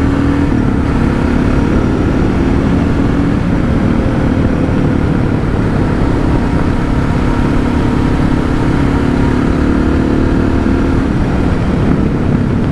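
Suzuki DR650's single-cylinder four-stroke engine running under way at a fairly steady cruising speed, with the heavy rush of wind and road noise of a moving motorcycle.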